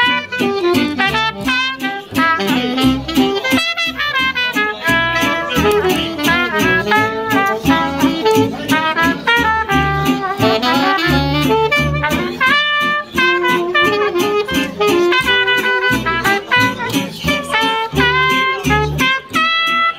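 Small jazz band playing live: saxophone and trumpet play melody lines over an upright double bass plucked by hand.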